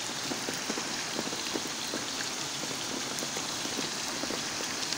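Steady rain falling, with many scattered drops ticking close by.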